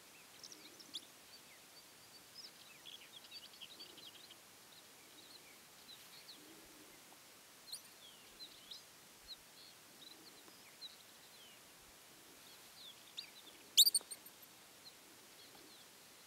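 Faint scattered high chirps and twitters of wild animals, with one short, loud, high-pitched squeak near the end, followed by a few softer chirps.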